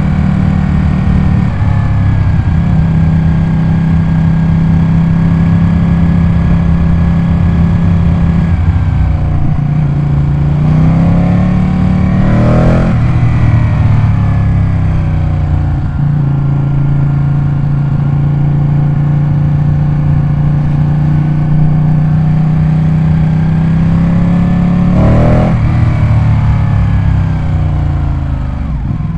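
Ducati 899 Panigale's V-twin engine running at a steady pitch, then rising to a peak and falling back, twice: about twelve seconds in and again near twenty-five seconds.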